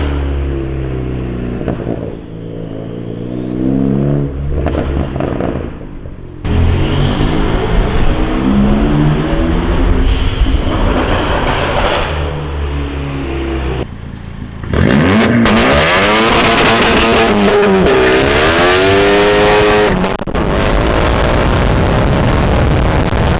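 Turbocharged Ford Focus ST engine on a pops-and-crackles tune, revving up and down in several separate passes with sudden cuts between them. The loudest pass, about 15 seconds in, is a hard rev that rises and falls in pitch.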